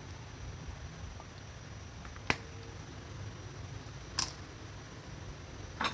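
Gas stove burner running under a frying pan with a low steady rumble, with three sharp clicks about two, four and six seconds in.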